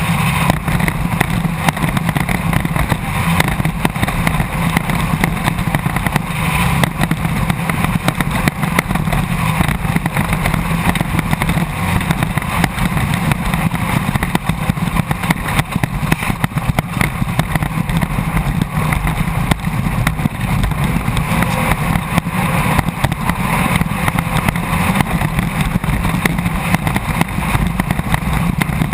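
Class 1600 off-road race car at speed, heard from inside the car: its air-cooled VW 1600 flat-four engine runs hard and steadily, under a constant rattle and clatter from the car's body.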